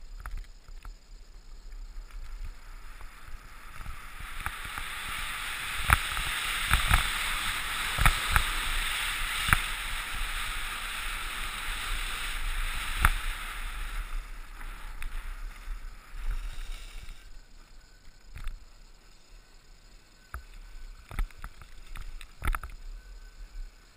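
Skis hissing and scraping over groomed snow, with sharp knocks scattered through. The hiss builds about four seconds in, is strongest for the next ten seconds, and dies away after about sixteen seconds, leaving a few knocks.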